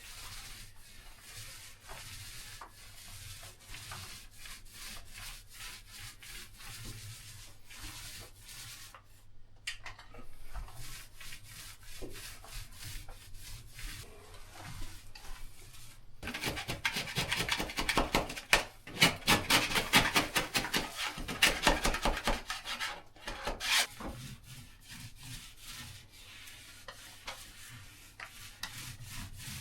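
Paintbrush strokes applying peel-stop binding primer to the edges of flaking paint: a steady run of back-and-forth scrubbing strokes, heavier and louder for several seconds past the middle.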